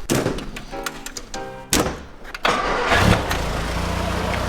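1964 MG Midget Mark II's 1098cc four-cylinder engine starting. It catches about three seconds in with a short rev, then settles into a steady idle; a couple of sharp knocks come before it.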